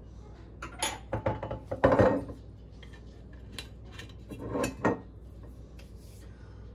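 Clinks and knocks of a metal jigger, glasses and a glass bourbon bottle handled on a tiled countertop while bourbon is measured out. There is a louder pour-like clatter about two seconds in, and another knock near five seconds as the capped bottle goes down on the counter.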